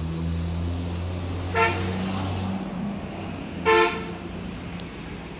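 Two short vehicle-horn toots, about two seconds apart, over a low steady hum that stops about halfway through.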